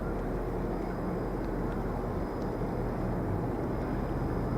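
Steady, even low rumble of outdoor background noise, without speech or any distinct event.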